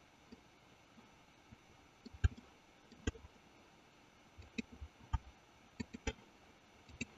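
Computer mouse clicking at irregular intervals, about a dozen single clicks, with the loudest a little over two seconds in.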